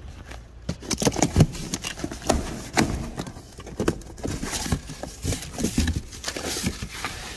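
Cardboard boxes being handled: a box holding a brake rotor is pulled from a shipping carton and its flaps opened. It makes a string of irregular knocks, taps and scuffs.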